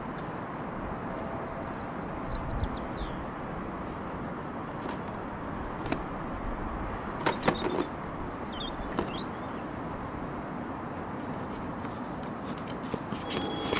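Windy city outdoor ambience: a steady rush of wind and distant traffic, with small birds chirping briefly about a second in and again near nine seconds, and a few sharp clicks in the middle.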